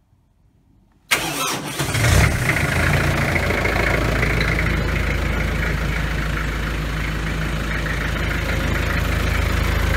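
Kubota M6800 tractor's diesel engine started after glow-plug preheat: after about a second of quiet the starter cranks, the engine catches about a second later, then it settles into a steady idle.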